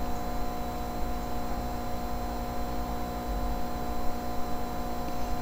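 Steady electrical hum: several constant tones over a low rumble.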